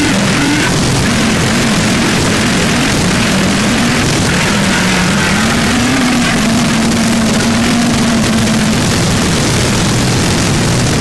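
Harsh noise music: a dense, distorted wall of noise at a constant loud level, with a low droning pitch that wavers and holds steady for a few seconds past the middle.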